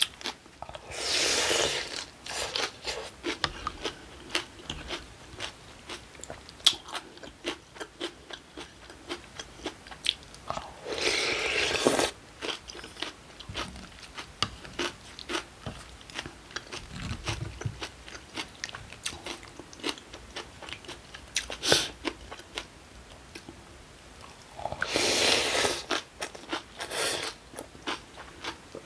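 Close-miked eating of acorn jelly rice in icy cold broth: crisp crunching and chewing of kimchi and vegetables, many small crackling bites throughout. Three louder, drawn-out slurps of the broth, about a second each, come near the start, about ten seconds in, and near the end.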